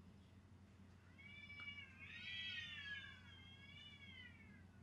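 A cat outside caterwauling: one faint, long, drawn-out yowl that wavers up and down in pitch, the 'nagoo' call of cats fighting.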